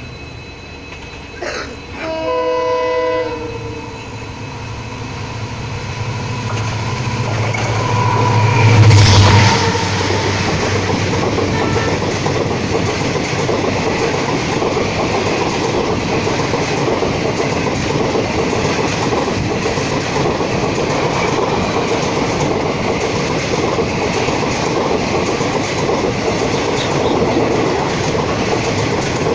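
An EMD WDP4D diesel locomotive sounds a short horn chord on its approach. Its engine rumble then swells to a peak as it passes about 9 s in, and is followed by the steady noise and wheel clatter of its coaches rolling past close by.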